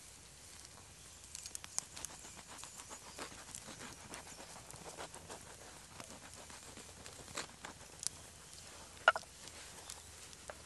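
A knife sawing through a crusty bread roll, the crust crackling in many small crisp snaps. There is a single sharp, slightly ringing knock near the end.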